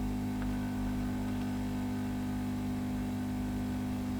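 Steady low electrical hum, a mains-type drone with several even overtones, unchanging throughout.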